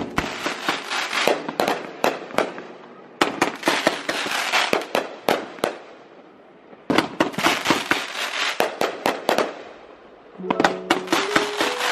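Fireworks going off: dense, rapid crackling and popping in three long runs with short lulls between them. Near the end more crackling starts, and music comes in.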